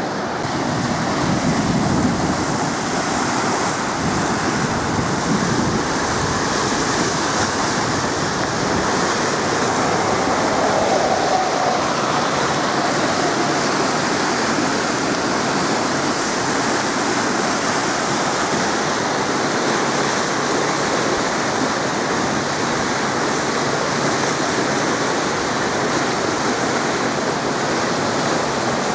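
Water rushing through the open gates of a hydroelectric dam, a steady, unbroken rush of churning river water.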